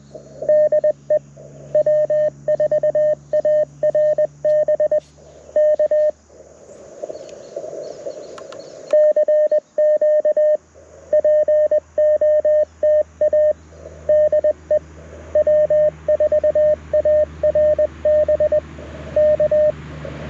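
Morse code (CW) from a Mountain Topper MTR4B transceiver through a small Bluetooth speaker: a single steady tone keyed in dots and dashes. It breaks off for about three seconds of receiver hiss, then resumes.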